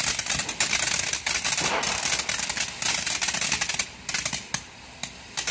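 Ground fountain firework spraying sparks: a steady hiss packed with rapid crackling pops. It falls away briefly twice near the end and then picks back up.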